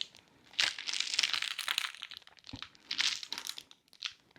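Plastic or paper crinkling and rustling in several short bursts with quiet gaps between, as it is handled.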